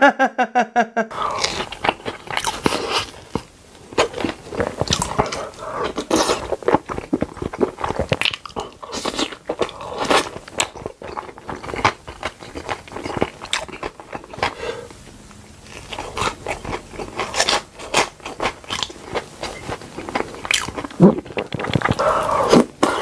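Close-miked eating: crunchy bites and chewing with wet mouth sounds, in quick irregular bursts.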